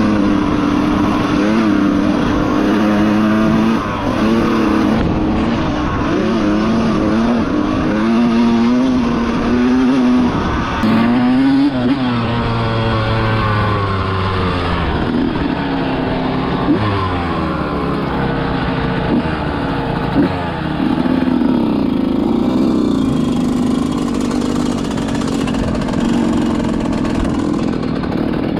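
Dirt bike engines revving up and down as they are ridden through the gears, several engines at once. Their pitch rises and falls again and again.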